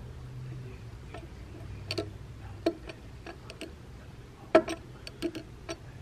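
Irregular light clicks and taps, about a dozen, the loudest about four and a half seconds in, as the metal belt buckle is handled and set down on a wooden tabletop. A faint steady low hum runs underneath.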